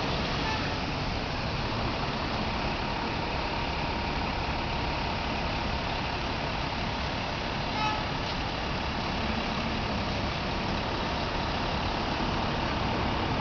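Fire engine's diesel engine running as the pumper creeps slowly through an intersection, under a steady wash of city traffic noise. A short high tone sounds once about eight seconds in.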